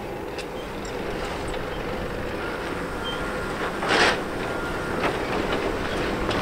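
Off-road vehicle driving on a rock trail: a steady running noise with light clicks and rattles, and a short loud hiss about four seconds in.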